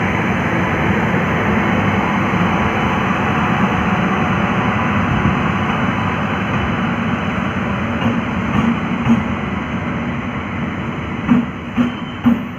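Passenger train passing close by, led by two electric locomotives, a WAP-5 and a WAP-7, with a loud steady rumble of wheels on rail. The coaches follow behind them, and near the end the wheels give a few sharp clacks over the rail joints.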